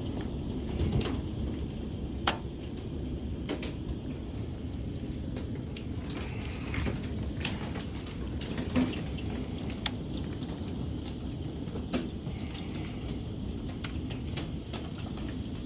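Storm noise: a steady rush of rain and wind with a low rumble, and scattered sharp ticks and taps, a few louder ones spread through.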